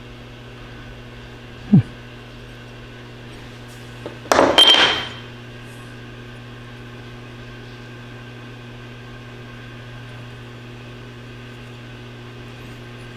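A steady low hum with a louder metallic clatter lasting about a second, a little over four seconds in, with a faint ringing tone in it, as engine parts are handled. A short knock comes just before that, near two seconds.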